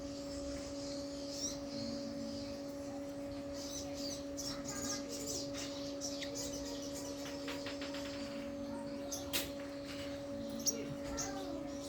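Sunbird (sogon) calling: repeated high-pitched chirps, a fast ticking trill about two-thirds of the way in, and two sharp clicks near the end. A steady low hum runs underneath.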